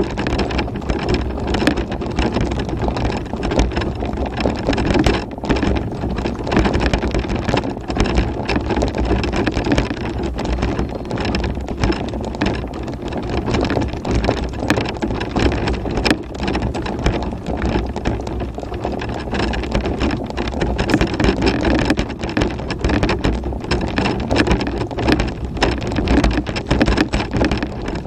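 Tramper electric off-road mobility scooter driving over a rough chalk track: a steady motor drive under constant crunching of the tyres and rattling of the frame, with many small clicks and knocks.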